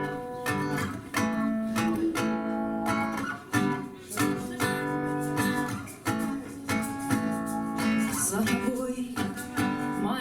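Acoustic guitar strumming chords as the instrumental introduction of a song, each chord struck sharply and left to ring.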